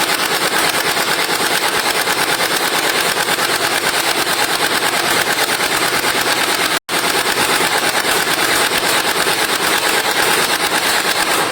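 Electric gel ball blaster (a VZ61 Scorpion replica with a 280-size motor gearbox) firing on full auto, its motor and gearbox cycling in a fast, even stream of shots. The fire breaks off for an instant about seven seconds in, then resumes.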